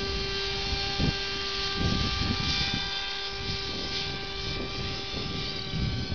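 Electric motor and propeller of a small foam RC pusher plane whining at a steady, unchanging pitch as the plane flies, with wind buffeting the microphone.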